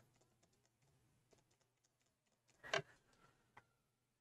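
Near silence with a few faint clicks and taps from watercolour painting tools being handled, the loudest a short tap just under three seconds in, followed by two smaller ticks.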